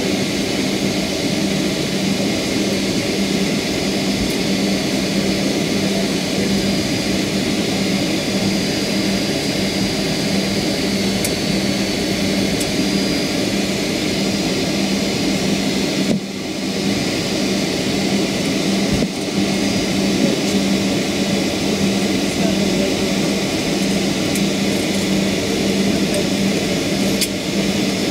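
Cabin noise of a Boeing 757-300 airliner taxiing after landing: the jet engines at low power give a steady rush with a steady low hum. The sound dips briefly twice, a little past the middle.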